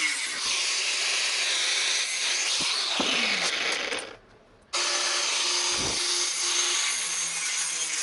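Power tool cutting or grinding the car's steel body panels: a steady high grinding noise that dips in pitch for a moment about three seconds in. It cuts out abruptly a little past four seconds and comes straight back.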